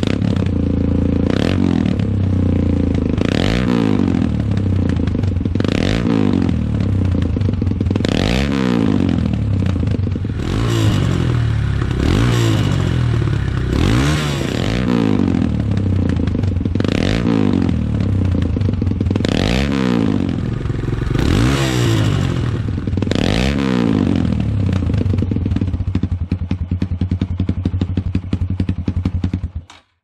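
Kawasaki KLX140G's air-cooled single-cylinder four-stroke engine, breathing through an FMF PowerCore 4 slip-on silencer, idling and being blipped about eleven times, each rev rising and dropping back to idle every two to three seconds.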